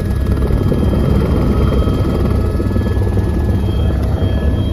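Passenger helicopter running steadily: a loud, even low rumble from the rotor and engine, with thin steady high tones over it.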